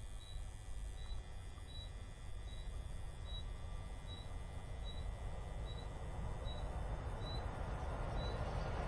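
A cricket chirping in a steady rhythm, short high chirps somewhat under two a second, over a low background rumble. An approaching freight train hauled by an ex-ČSD class 242 Škoda electric locomotive grows steadily louder through the second half.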